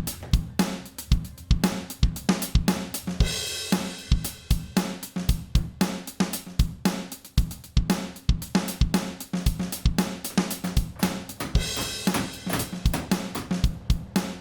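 Background music: an upbeat drum-kit track with kick, snare and hi-hat on a steady beat over a bass line, with a cymbal swell about three seconds in and again near the end.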